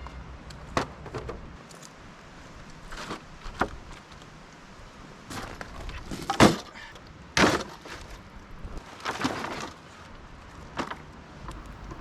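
A string of separate knocks and clatters at irregular intervals, the loudest about six and a half seconds in, like things being handled and set down.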